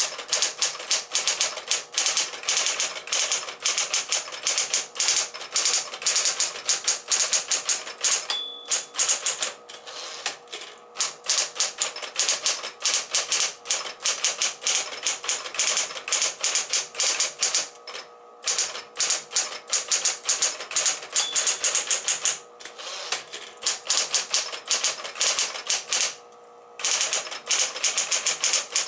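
Smith-Corona Coronet Electric 12 electric typewriter being typed on fast: dense, rapid key strikes over the steady hum of its running motor, broken by a few short pauses. A brief ringing tone sounds twice, about a third and about three-quarters of the way through.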